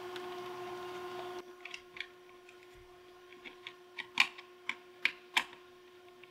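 Small screwdriver clicking and scraping on the screw terminals of a pump controller's terminal block as sensor wires are fastened: a scatter of light ticks, then a few sharper clicks about four to five and a half seconds in. A faint steady hum runs underneath.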